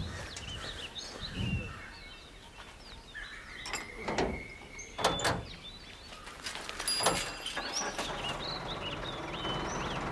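Birds chirping, with several knocks and metallic clanks from a pickup truck's load bed and doors as it is loaded and closed up. A steady low engine hum sets in near the end.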